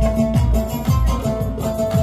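Background music with a steady beat: low drum strokes about twice a second under sustained instrument tones.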